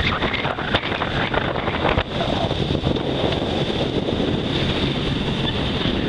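Wind buffeting the microphone on the deck of a sailboat under sail, with the rush of water along the hull beneath it.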